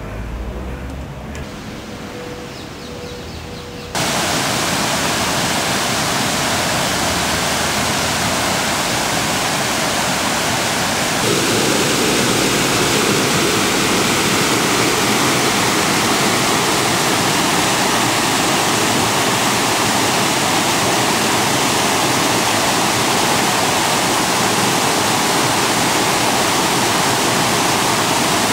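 Water pouring over a small weir, a loud steady rush that begins abruptly about four seconds in, after a few quieter seconds, and grows fuller a few seconds later.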